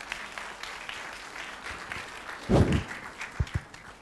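Audience applauding after a spoken comment, fading out near the end, with a loud low thump about two and a half seconds in and a couple of smaller knocks after it.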